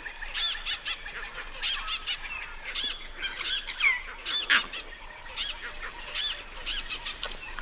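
Vervet monkeys and other animals giving alarm calls at a leopard: a rapid string of short, high, arching calls, several a second, with no let-up.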